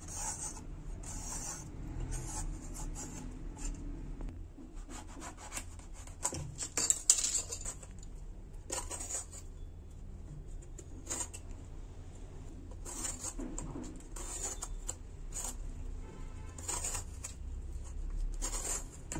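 Vegetable peeler scraping the skin off a bottle gourd in repeated short, scratchy strokes, irregularly spaced about one every second.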